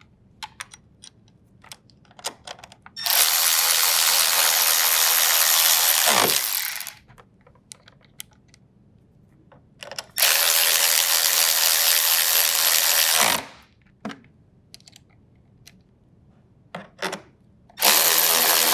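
Drill driver with a 10mm socket running three times, about three to four seconds each, driving in the refrigerator's door hinge bolts. The first run winds down with a falling pitch, and a few light clicks of the socket being fitted come before and between the runs.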